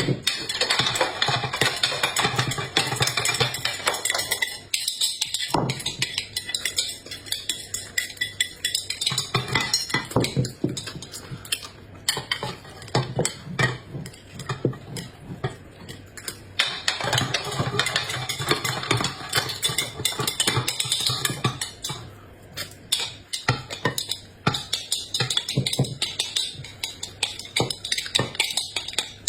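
Kitchen utensils and dishes clattering: many quick clicks and knocks throughout, with a short lull about five seconds in.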